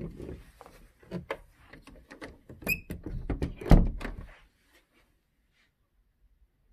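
Knocks and thumps of a closet door being handled, with a short squeak a little under three seconds in and the loudest thump just before four seconds; the clatter stops at about four and a half seconds.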